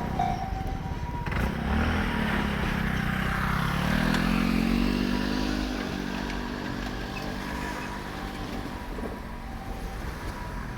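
Japanese level-crossing bell ringing, stopping about a second in; then a road vehicle's engine pulls away and speeds up, its pitch rising for a few seconds before levelling off.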